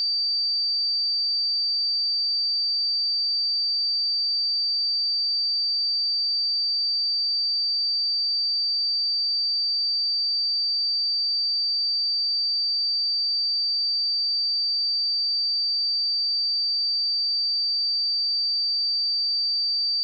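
A pure 4642 Hz sine-wave test tone, a single steady high-pitched tone held at constant level.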